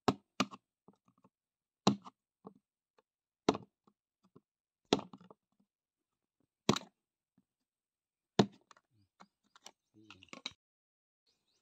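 A screwdriver jabbing into and prising at the plastic inner seal on the spout of a Servo engine oil bucket, making sharp plastic cracks about every one and a half seconds, seven in all. A cluster of smaller clicks comes near the end as the seal piece comes away.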